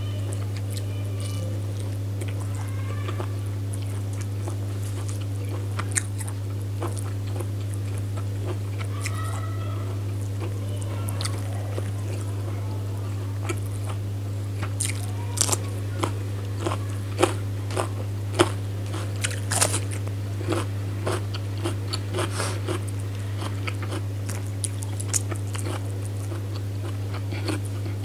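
Close-up chewing and biting while eating chicken curry and rice: wet mouth clicks and crunches, coming thicker about halfway through. A steady low hum runs underneath.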